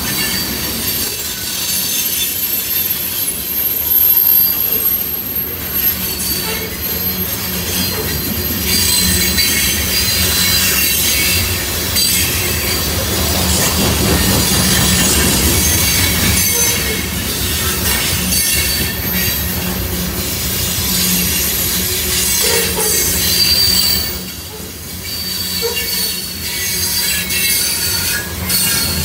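A freight train of covered hopper cars rolls past close by: a steady rumble of wheels on rail with high-pitched wheel squeal at several pitches over it, dipping briefly near the end.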